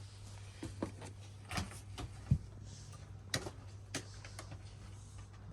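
Scattered light clicks and knocks of small screws and pressure-washer parts being handled, with one duller thump about two seconds in, over a steady low hum.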